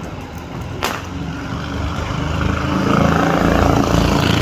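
A motor vehicle driving past close by, its engine and tyre noise growing louder to a peak about three to four seconds in. A single sharp click about a second in.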